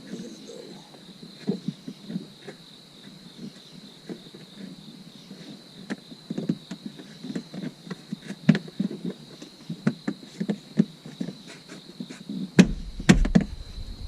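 Scattered clicks, rustles and taps of plastic interior trim and wiring being handled inside an SUV, with a few louder knocks near the end. A faint steady high tone runs underneath.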